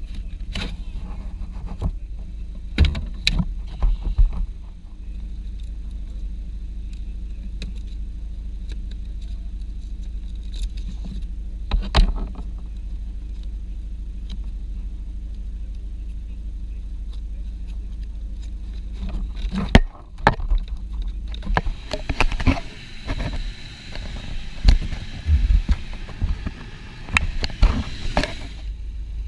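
Clicks and knocks of car interior parts being handled while a Volkswagen cabin air filter is changed, over a steady low hum. They come singly a few seconds in and again near 12 seconds, then crowd together with a rustling hiss for the last several seconds.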